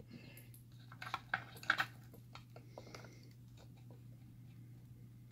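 Light clicks and taps of small metal lock parts being handled while a Carbine padlock is disassembled, bunched about one to two seconds in, with a few fainter ticks afterwards.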